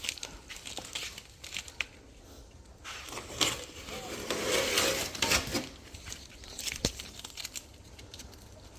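Masking tape and masking paper being peeled off a freshly painted car body and crumpled, with irregular tearing and crinkling, loudest about halfway through, and a sharp click near the end.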